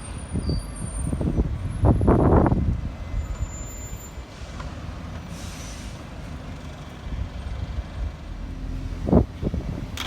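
Bus engine running, with a soft hiss of air brakes partway through.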